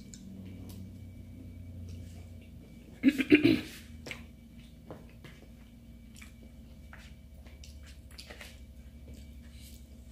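Close-up eating sounds: chewing and mouth noises with scattered light clicks and scrapes of a fork and spoon on a paper plate. A brief, louder voice sound breaks in about three seconds in.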